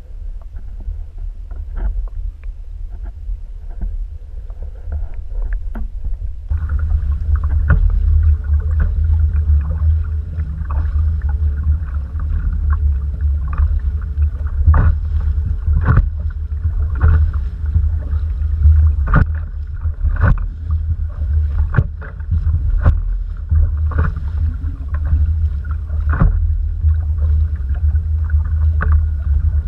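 A canoe out on the water, with a heavy low rumble and frequent short knocks against the hull. A steady hum joins about six seconds in and the sound gets louder.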